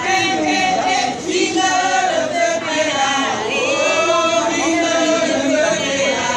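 A group of people singing a chant together, with long held notes.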